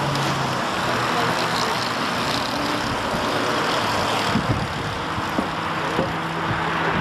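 A pack of small two-stroke cadet go-karts racing past on the track, their engines running at high revs in a steady blended buzz.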